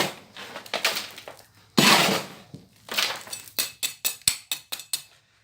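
Steel hand trowel scraping and scooping dirt, in a few rasping strokes, then a quick run of short knocks and clinks near the end.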